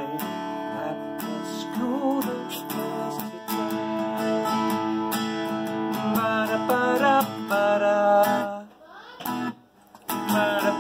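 Steel-string acoustic cutaway guitar strummed in a steady rhythm of chords as an instrumental break. The playing stops for about a second near the end, then picks up again.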